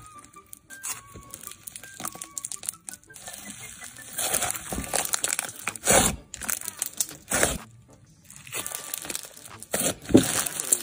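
Hands squeezing and stretching thick pink slime mixed with crunchy sprinkles, making dense crackling, crinkling and squishing sounds. The crackling grows loud about four seconds in, breaks off for about a second a little before eight seconds, then starts again.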